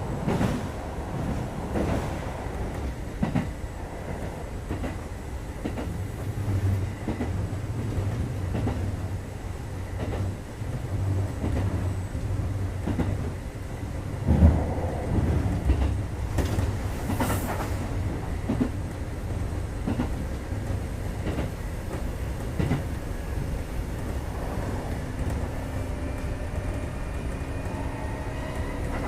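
Kintetsu 2430 series electric train running at speed, heard from inside the car: a steady low rumble with wheels clacking over rail joints and a louder knock about halfway. Near the end a faint whine comes in and rises in pitch.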